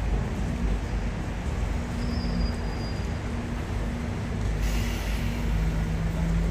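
A steady, low vehicle engine rumble, with a short hiss about four and a half seconds in.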